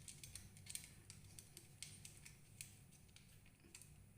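Faint, scattered small clicks and scrapes of a cable being worked into the terminal of a smoke detector base, over a low steady hum.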